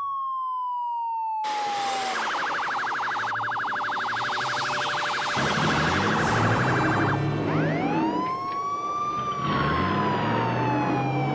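Electronic police siren: a falling wail that switches to a fast warbling yelp for about five seconds, then goes back to a slow rising and falling wail.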